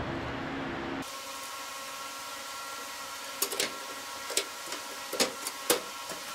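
Handling noise from a glass-paned window frame being fitted against a truck's sheet-metal cowl: about six sharp, light clicks and taps in the second half, over a steady faint hum.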